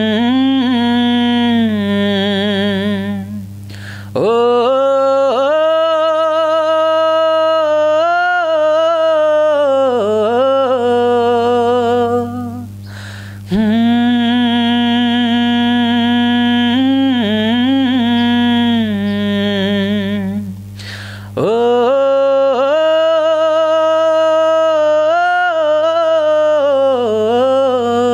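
A man singing unaccompanied: slow, wordless phrases of long held notes with a wavering vibrato. Each phrase lasts several seconds, with a short breath between them, about three times. A steady low hum runs underneath.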